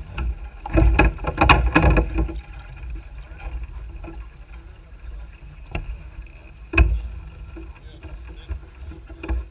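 Knocks and rattles from gear and lines being handled aboard a small sailboat, a dense flurry about a second in and single sharp knocks near the middle and the end, over a steady low rumble of wind and water on the microphone.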